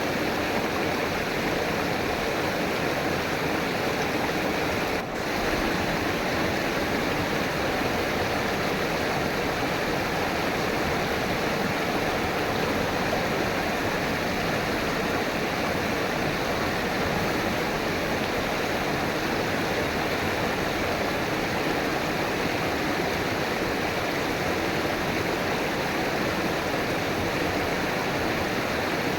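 River water flowing, a steady even rushing, with a brief dip in level about five seconds in.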